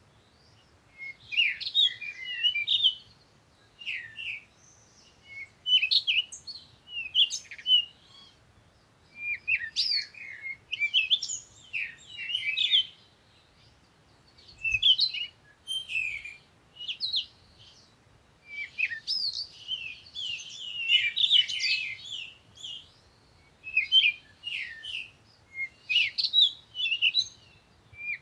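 Small birds chirping and twittering in short clusters of quick, high chirps, one cluster every second or two, with brief pauses between.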